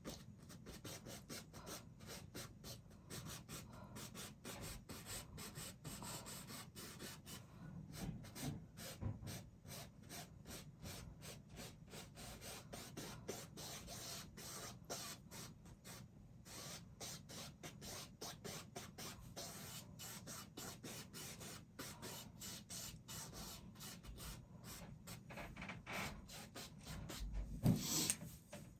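Paintbrush scrubbing and dabbing on a canvas in quick, rapid strokes, faint, with a louder knock about a second before the end.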